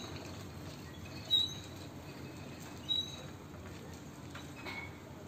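Child's training-wheel bicycle giving short high squeaks at an even pace, about one every second and a half, as it is pedalled; the squeaks stop about three seconds in.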